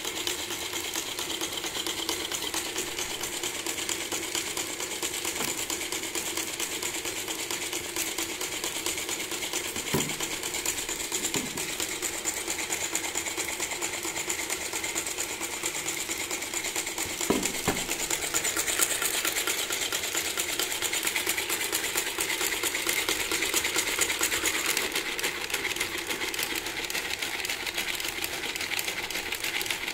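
3D-printed plastic (PLA and ABS) four-cylinder engine model turning over, its plastic parts making a steady, rapid clicking clatter that gets a little louder a bit past halfway.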